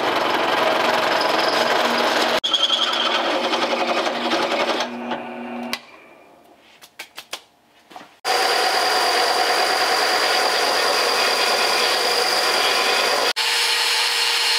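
Bench drill press drilling out a bolt hole in a steel mounting tab from about half an inch to 5/8, running steadily and then spinning down about five seconds in, followed by a few light clicks. About eight seconds in, a power tool starts up again and runs steadily with a high whine; near the end an angle grinder is cutting steel.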